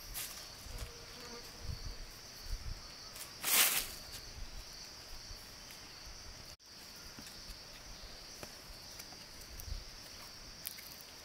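Insects buzzing steadily in a high, even drone, with a brief loud swish about three and a half seconds in and a few soft low knocks. The sound cuts out for an instant a little past halfway.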